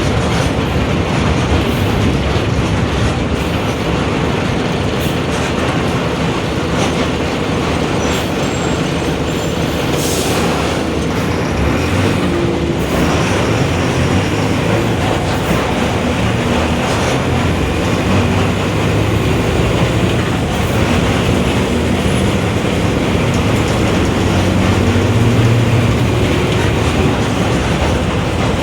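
Mercedes-Benz OF-1721 city bus under way, heard aboard: the diesel engine running with steady road and cabin noise, and the differential growling.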